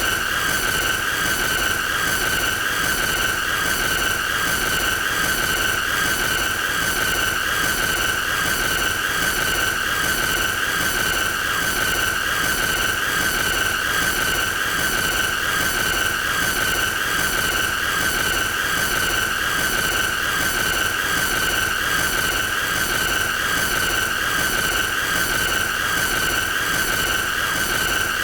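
A continuous high-pitched squealing tone, held steady without a break, over a hissy, noisy layer.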